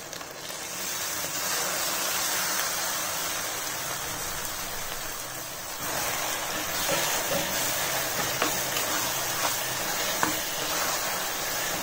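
Oil sizzling in a metal kadai as a wet ground masala paste goes in on top of frying brinjals and onions; the sizzle swells about half a second in. From about six seconds a spoon stirs the paste through, with light clicks of metal against the pan.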